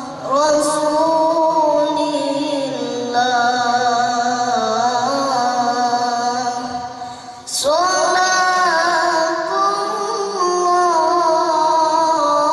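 A boy's voice chanting Qur'an recitation (tilawah) in long, melodic held phrases with ornamented turns; there is a short break for breath about seven and a half seconds in, then a new phrase begins.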